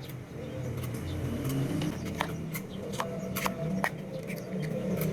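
A motor running with a low hum that shifts in pitch and rises near the end, with about eight sharp clicks or taps scattered through it.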